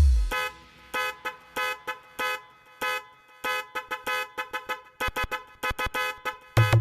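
Electronic DJ sound-check remix track: short, sharp horn-like stabs repeat in a rhythm that quickens after about five seconds. A deep bass kick drops in pitch at the start and hits again near the end.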